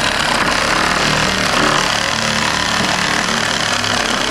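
Makita JR105DZ cordless reciprocating saw running steadily at full speed as its blade cuts through wood.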